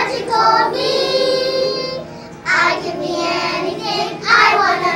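A group of young children singing a song together, with a long held note in the first couple of seconds and a short break about two seconds in before the next phrases.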